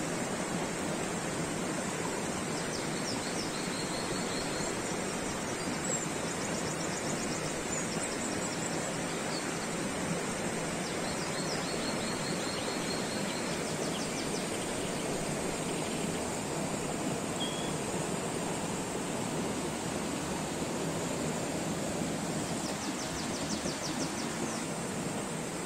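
Steady rushing outdoor noise, even and unbroken. A few faint, high, rapid trills come through it at intervals.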